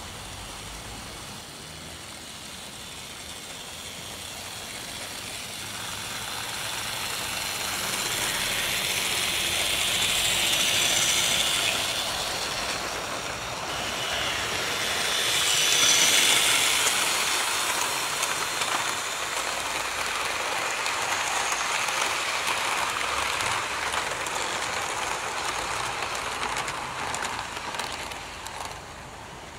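A 1950s Hornby Dublo Duchess of Montrose 00 gauge model locomotive running with a long train of 14 coaches: a steady rolling clatter of small wheels on the track. It grows louder over the first ten seconds or so as the train nears, is loudest about halfway through, and falls away near the end.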